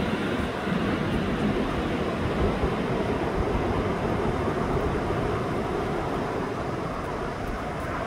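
Ocean surf breaking and washing ashore: a steady, even rushing noise.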